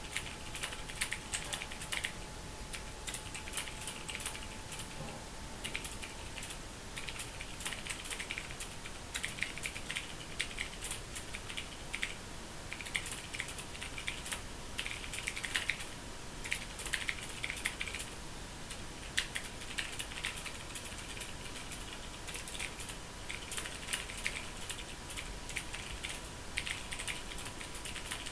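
Fast typing on a Ducky Mecha mechanical keyboard: rapid runs of key clicks broken by short pauses every few seconds. A faint steady high tone runs underneath.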